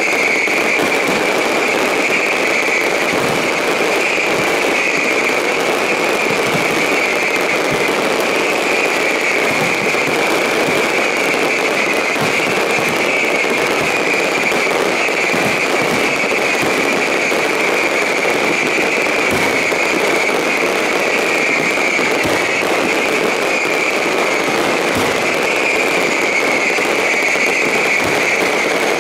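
Fireworks finale: launches and bursts so dense that they merge into one continuous din, with a steady high hiss over it.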